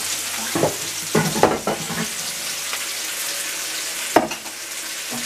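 Vegetables (onion, carrot and bell pepper) sizzling steadily in a frying pan on high heat. A few clattering knocks come between about half a second and two seconds in, and one sharp knock a little after four seconds.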